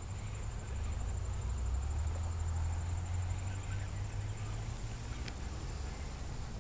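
Low rumble of wind buffeting the microphone, swelling for a few seconds, over a faint steady high-pitched hum of outdoor ambience.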